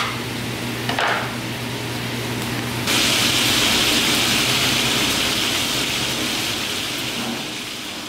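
Meat sizzling in a cast-iron skillet over a gas burner: a steady hiss that starts abruptly about three seconds in and slowly fades toward the end. Before it, a low hum and a brief sound about a second in.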